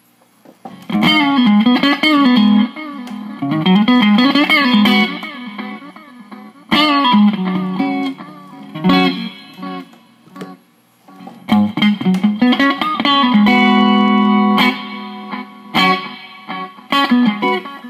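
Electric guitar played through a repaired MXR Carbon Copy analog delay pedal into an amp. Several short phrases of picked notes follow one another, each trailing off in quieter echoes before the next, as the pedal is tested after its repair.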